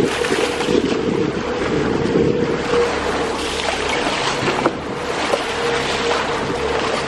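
Water rushing past a sailboat's bow as it moves under way, with wind buffeting the microphone and a steady hum underneath. There is a brief splash near the start as a dolphin breaks the surface in the bow wave.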